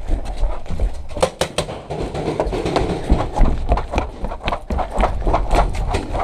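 Running footsteps on hollow wooden deck boards, a quick series of knocking thuds several per second.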